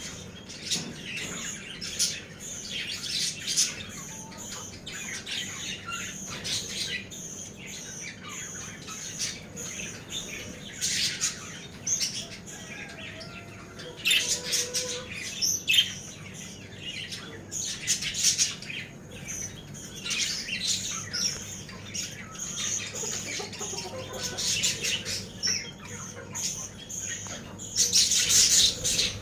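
Many small birds chirping together in a dense, overlapping chorus of short, high calls, with louder flurries now and then, the loudest near the end.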